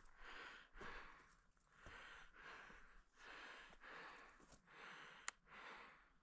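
A person breathing fast and heavily close to the microphone, one faint breath about every three-quarters of a second, with a single sharp click about five seconds in.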